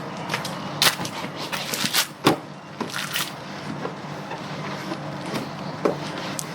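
Irregular knocks, clicks and scrapes from handling things while washing a motorbike, over a steady low hum.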